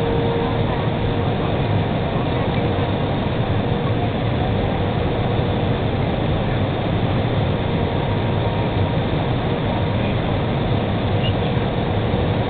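Steady cabin noise inside an Airbus A320: an even rumble of engines and rushing air, with a faint steady hum running through it.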